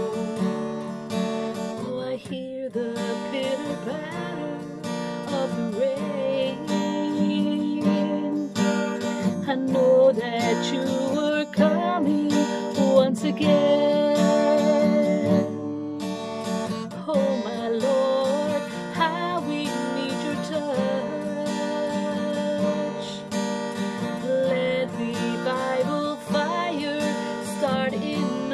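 A woman singing to her own strummed acoustic guitar.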